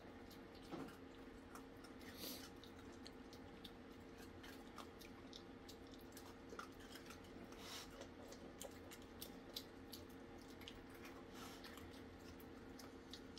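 Two raccoons eating cookie crumbs: faint crunching and scattered small clicks of chewing, over a steady low hum.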